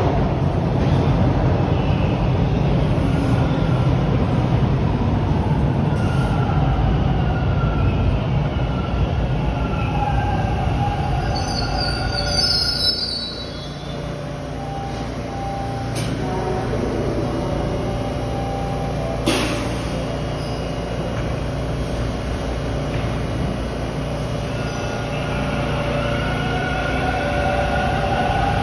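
Bombardier T1 subway trains in the station: heavy rumble with a whining, squealing tone for about the first twelve seconds, ending in a brief high squeal. Then a quieter, steadier hum with two sharp clicks, and motor whine rising again near the end as a train gets moving.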